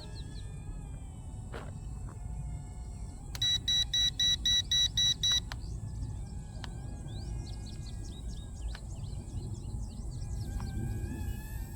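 Low rumble of wind noise with birds chirping throughout; about a third of the way in, a quick run of about eight electronic beeps lasting some two seconds.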